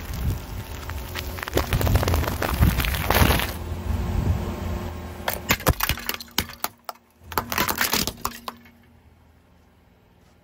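Car tyre rolling over and crushing packets of crisps: a dense crunching crackle with a low rumble. After a short lull, a run of sharp cracks as a tyre breaks brittle white objects into shards, stopping about eight and a half seconds in.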